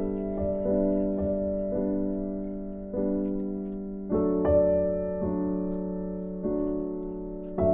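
Background music: slow, gentle solo piano, with notes and chords struck every second or so and left to ring and fade.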